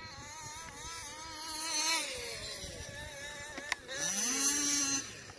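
Small two-stroke engines of 1/5-scale gas RC cars running and revving, their pitch wavering up and down. There is a single sharp click about three and a half seconds in.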